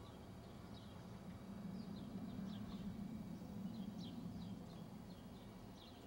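Small birds chirping: short, falling chirps come again and again at irregular intervals. Under them runs a low, steady hum that swells a little in the middle.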